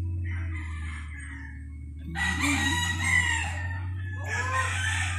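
Roosters crowing: a faint crow early on, then two louder crows about two seconds apart, over a steady low hum.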